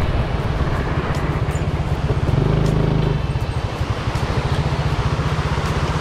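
Motorcycle engine running under way. The engine note rises briefly about two and a half seconds in, then settles into a steady, even pulsing.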